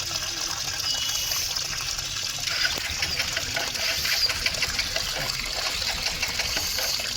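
Water gushing and splashing into a Samsung top-load washing machine's tub as it fills. The splashing grows busier about two and a half seconds in.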